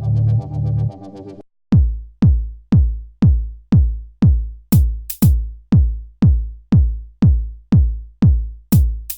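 Electronic dance music: synthesizer chords that stop about a second and a half in, followed by a drum-machine beat of deep kick drums, each dropping in pitch, about two a second, with a few short cymbal-like hits.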